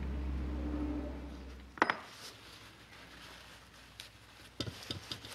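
A low steady hum dies away over the first two seconds. Then comes a sharp metallic click, the loudest sound here, and near the end a few light metal clinks as a steel rod is handled in the stud hole of an aluminium engine case.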